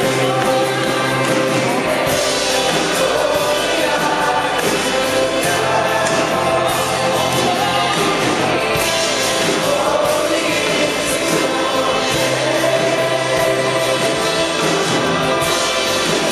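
Christian worship music with a group of voices singing, at an even level throughout.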